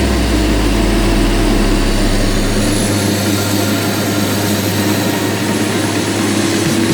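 Komatsu PC200-8 excavator's diesel engine running steadily with a faint high whine above it. Its deepest rumble fades out about three seconds in.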